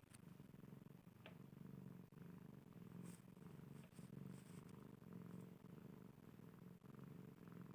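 Domestic cat purring: a soft, low, steady rumble that swells and eases in turn with the cat's breathing.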